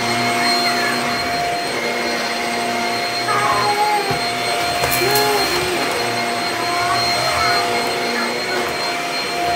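Bissell vacuum cleaner motor running steadily, a continuous rushing hum with a fixed whine on top.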